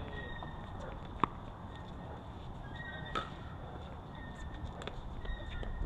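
Outdoor court ambience: a steady low wind rumble with two sharp pops, about a second in and about three seconds in, of pickleball paddles hitting the ball, and faint distant voices.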